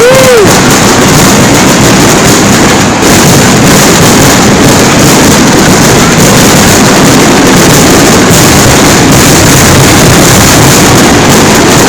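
Fireworks display heard as a constant, very loud rumbling roar that overloads the microphone, with no single bangs standing out.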